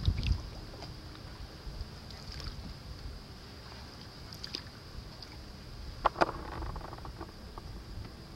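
Paddling a canoe: soft paddle and water sounds, with scattered light clicks and two sharp knocks close together about six seconds in. A faint steady high whine sits under it all.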